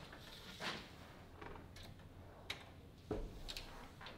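Faint, scattered clicks and knocks of light hand work at the roof trusses, with one heavier thump about three seconds in.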